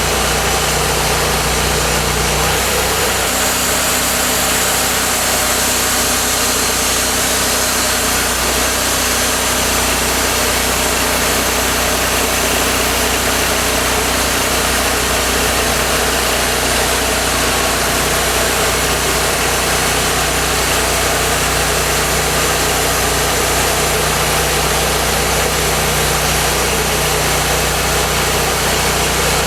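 Cook's MP-32 portable bandsaw sawmill running steadily under power, its band blade sawing through a log to cut thin boards. The low engine tone shifts about two and a half seconds in.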